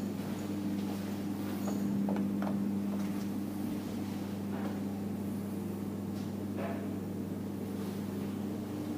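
A steady low electrical hum, with a few faint soft taps of footsteps.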